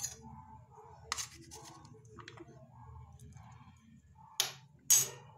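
A spoon scraping and clinking on a steel plate as chopped onion is pushed off into a bowl of whisked curd: a few sharp clinks, the two loudest about half a second apart near the end, over a low steady hum.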